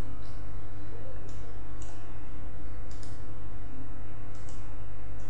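A computer mouse clicking about five times, spread over the few seconds, over a steady low hum with several fixed tones.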